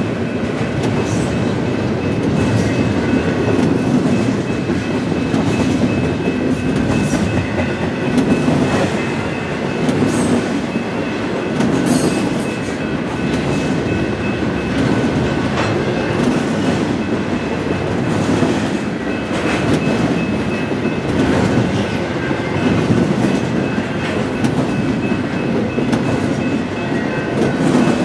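Double-stack intermodal freight train of container-laden well cars rolling past at speed: a steady rumble of steel wheels on rail with irregular clickety-clack from wheels over rail joints, and a faint steady high whine running under it.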